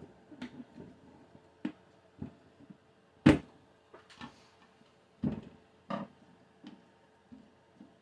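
Irregular knocks and clacks of tire irons and plastic rim protectors against a motorcycle wheel rim as a tire bead is levered over the rim edge, with the loudest knock a little over three seconds in.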